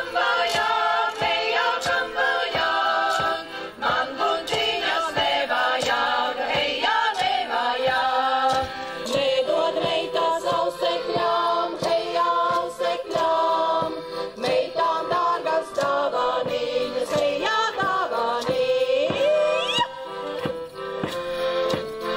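Latvian folk ensemble of women's voices singing a folk song together, accompanied by accordion, with a steady percussive beat running through it.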